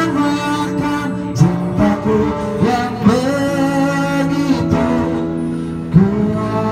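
Live band playing a slow pop song: a singer's voice gliding over electronic keyboard chords, with a few drumstick hits.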